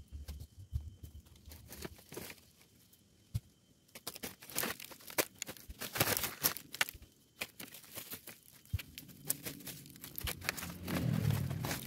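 Irregular crackling and rustling of dry leaves, twigs and soil being pulled at and stepped on, with sharp snaps scattered throughout. The rustling gets fuller and closer near the end.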